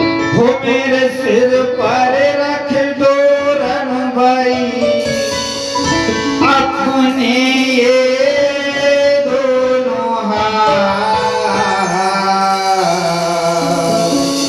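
Live devotional folk song played over loudspeakers: male singing with sustained instrumental accompaniment, steady throughout.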